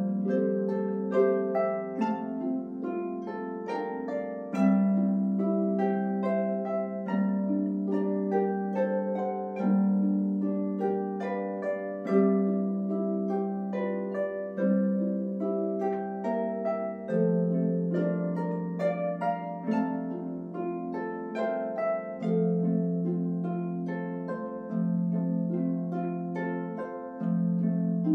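Three concert pedal harps playing a hymn arrangement together: a steady stream of plucked, ringing notes over a low bass note that changes every two to three seconds.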